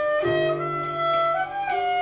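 Soprano saxophone playing a melody that steps upward and settles into a long held note, over plucked double bass notes and light cymbal strokes on the drum kit.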